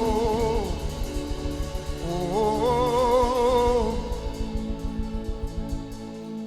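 Live gospel worship music. A singer holds two long wordless "oh" notes with a wavering pitch, the first trailing off early on and the second from about two seconds in, over sustained backing and a steady beat. The beat drops out near the end, leaving the backing alone.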